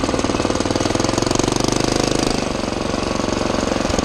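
Predator 212cc 6.5 hp single-cylinder four-stroke engine on a motorized bicycle, running under way with a rapid, even firing beat. It gets louder about a second in, then eases off about two and a half seconds in.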